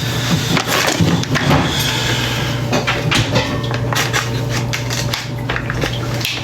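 Kitchen knife chopping on a wooden cutting board: a run of short, irregular knocks that comes quicker in the second half.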